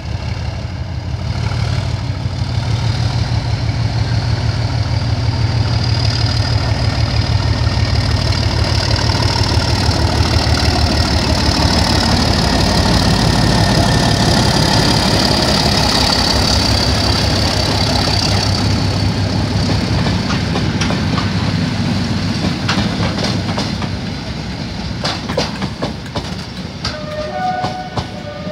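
Class 37 diesel locomotive 37116 thrashing away under full power, its English Electric V12 engine loud with a deep pulsing beat that builds as it approaches and passes close by, then eases off. Near the end the trailing test coaches click over the rail joints.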